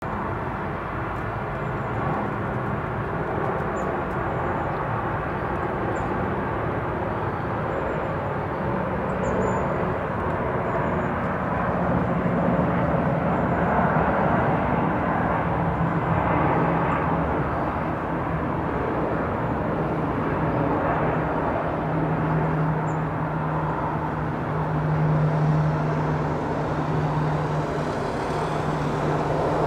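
Jet engines of a Boeing 737-800 on approach overhead: a steady, distant rumble with a low drone under it, growing a little louder in the middle and again near the end.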